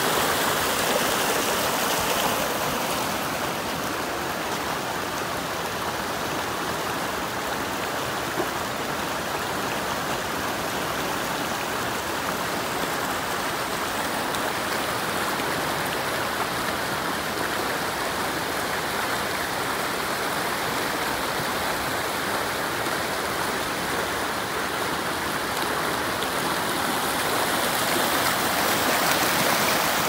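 Mountain stream rushing and splashing over boulders and stones, a steady rush of water. It drops a little in loudness after about two seconds and swells again near the end.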